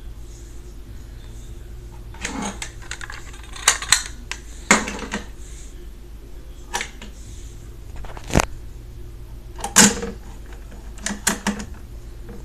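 Crocodile Dentist toy's plastic jaw and teeth clicking: scattered sharp clicks as the mouth is pried open and the teeth pressed down, with the loudest snaps a little past the middle as the spring-loaded jaw shuts.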